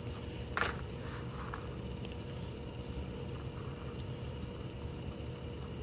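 Nylon paracord rustling as it is handled and knotted, with one sharp rustle about half a second in, over a steady low background hum.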